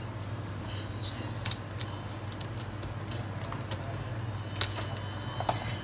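Scattered light clicks and taps of small hard objects over a steady low electrical hum.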